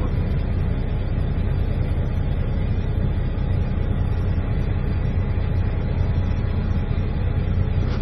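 Semi truck's diesel engine idling steadily, heard from inside the cab, with the cab's heater/air-conditioning fans blowing on fresh-air intake.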